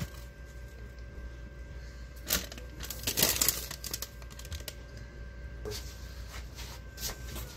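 Checkered paper basket liners crinkling as they are handled and tucked into plastic food baskets, in a few short bursts, the loudest about three seconds in.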